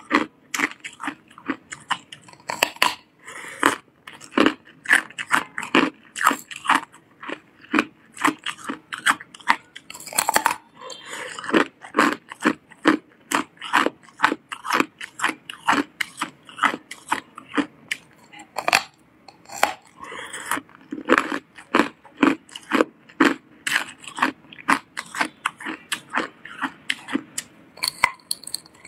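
A person biting into and chewing hard clear ice, a rapid, irregular run of sharp cracks and crunches that keeps going throughout.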